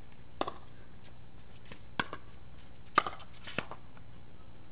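Pickleball rally: paddles hitting the hollow plastic ball, four sharp pops at uneven intervals, the loudest about three seconds in.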